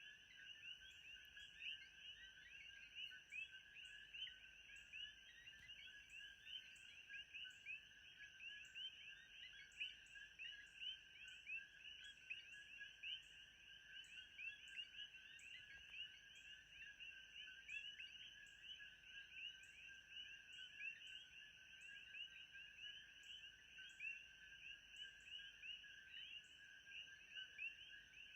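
Faint, steady ambience of a dense animal chorus: many small overlapping chirping calls, with a thin high steady whine and light ticking above them.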